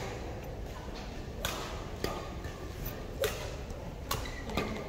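A doubles rally of racket strikes: about five sharp hits, irregularly spaced half a second to a second apart, ringing in a large hall.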